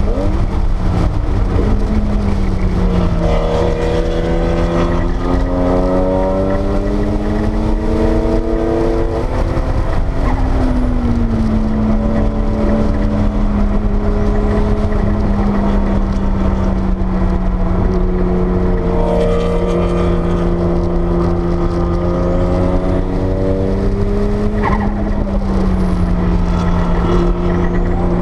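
Porsche 930 Turbo's turbocharged air-cooled flat-six heard from inside the cabin, pulling hard on track. The revs climb steadily for several seconds, drop about ten seconds in, hold fairly even, then dip again near the end, over a constant low road and wind rumble.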